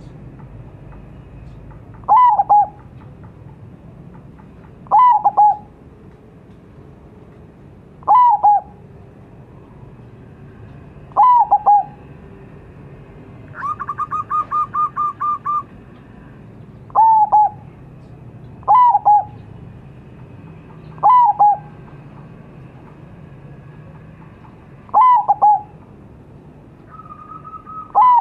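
Zebra dove (perkutut) calling: a short phrase that drops down onto two or three lower notes, repeated about every three seconds, nine times in all. About halfway through comes a quick run of a dozen or so short, even notes.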